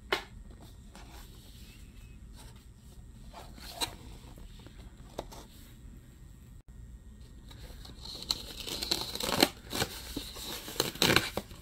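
Cardboard toy box being opened by hand. It starts with a few light taps of handling, then, about eight seconds in, the flap is pried loose with dense tearing and crinkling and a couple of sharp snaps.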